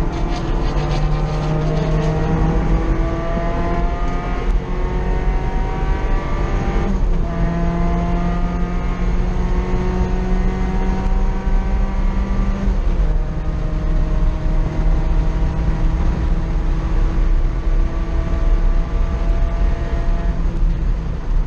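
Mazda NC Miata with a 2.5-litre four-cylinder engine at full throttle on track, heard from inside the cabin: the engine note climbs steadily in pitch and drops back at gear changes several times, over constant road and wind rumble.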